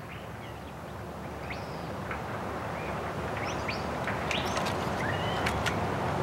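Small birds chirping in short, scattered calls over a steady outdoor background noise that slowly grows louder.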